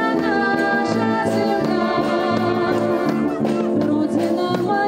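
A woman singing through a microphone with a military brass band playing along.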